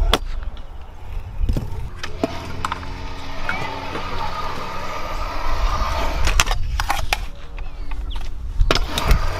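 Stunt scooter wheels rolling on a concrete skatepark, with sharp clacks scattered through as the scooters hop, land and grind on ledges and ramp edges, several close together about two thirds of the way in.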